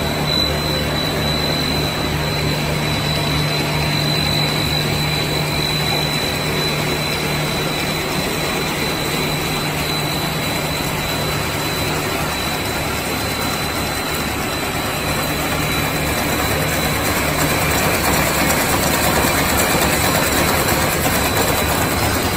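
Core-filling puffed snack extruder line running: a steady mechanical din with a low hum and a thin high whine, both fading out a little past halfway.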